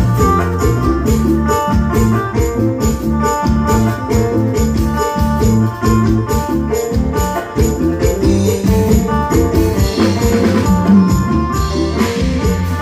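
Music: instruments holding notes over a steady beat, with jingling percussion such as a tambourine or bells.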